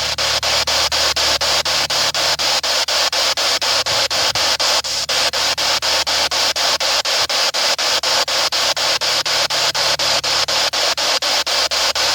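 Spirit box (ghost box radio) sweeping through radio frequencies: loud hissing static chopped by short gaps about five or six times a second.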